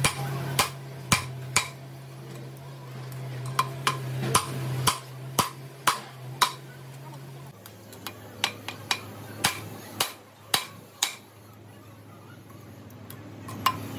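Light metal-on-metal taps and clinks, many about two a second, with a pause of a couple of seconds near the end, over a steady low machine hum that drops a little in pitch about halfway through.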